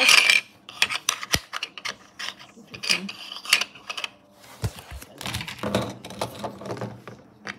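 Small plastic toy cars handled and set down on a wooden desk: an irregular run of light clicks, rattles and a few sharper knocks.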